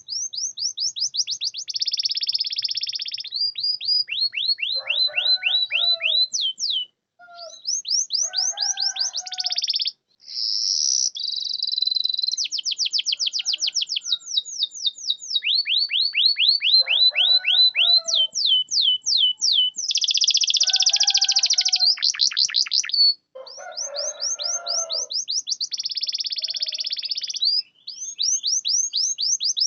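Domestic canary singing a long, continuous song of rapid repeated trills and rolls. It switches from one run of notes to the next every second or two, with a few brief pauses.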